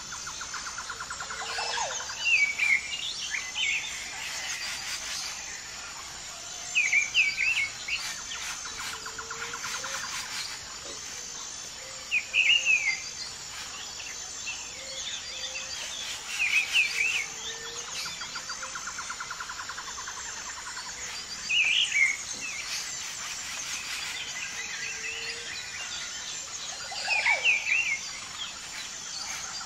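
Forest birdsong: short chirping phrases every four to five seconds over a steady high insect hum.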